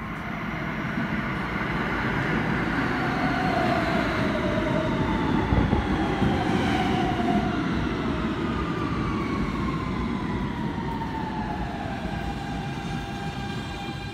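R160B subway train pulling in and braking: a heavy rumble of wheels on rail, with the electric traction motors' whine sliding steadily down in pitch as the train slows.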